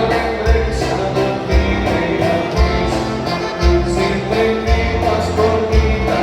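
Music with singing and a steady beat, a bass thump about once a second.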